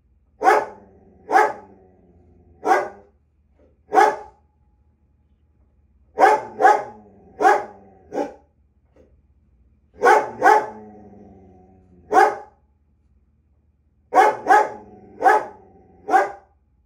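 A Belgian Malinois barking at its own reflection in a mirror, taking it for another dog: about fifteen barks in bursts of one to four, with pauses of a second or two between bursts.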